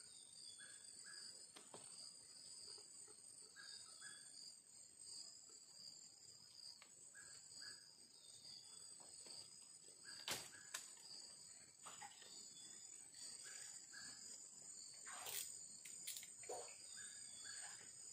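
Faint steady high-pitched insect chorus, with a short two-note call repeating about every three seconds. A few sharp clicks about ten seconds in and again near the end.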